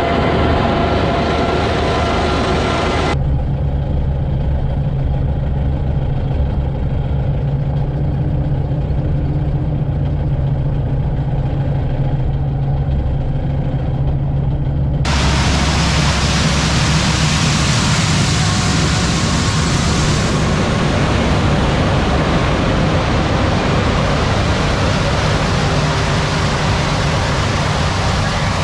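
Tractor engine running steadily with a loud low drone, heard across several clips cut together: the sound changes abruptly about 3 seconds in and again about 15 seconds in.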